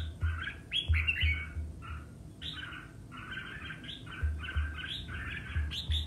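Red-whiskered bulbul singing competitively: quick, repeated phrases of bright chirping notes with hardly a pause.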